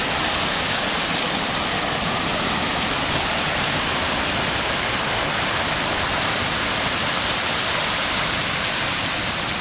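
Waterfall pouring steadily at close range, an even rushing and splashing of falling water.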